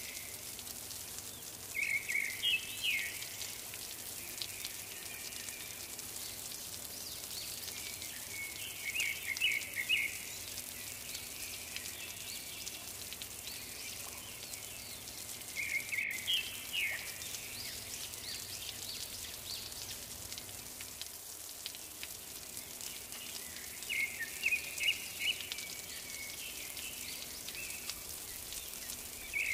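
A bird singing short phrases of quick, high chirps, one phrase about every seven seconds, over a steady hiss.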